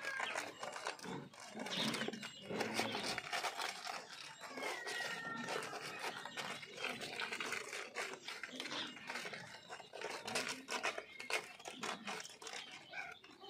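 A litter of Mudhol hound puppies suckling from their mother: a steady patter of quick wet clicks and smacks. A short high call rises and falls about four and a half seconds in.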